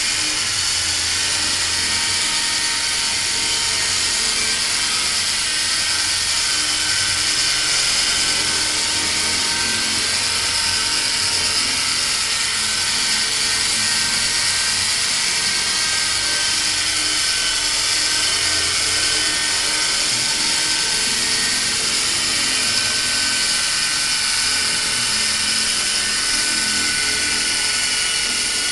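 E-Sky Honey Bee fixed-pitch RC helicopter hovering: a steady high-pitched whine of its electric motors and gearing with the buzz of the spinning rotors. Right at the end the whine drops in pitch as it sets down.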